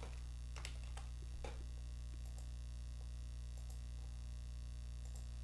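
A few computer keyboard keystrokes in the first second and a half, as a drug name is typed into a search box, over a steady low electrical hum.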